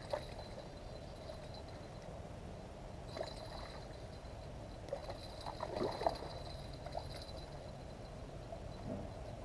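A hooked carp splashing and sloshing in shallow water at the riverbank as it is brought to a landing net, with a few soft splashes and a small cluster of them about five to six seconds in, over a steady outdoor hiss.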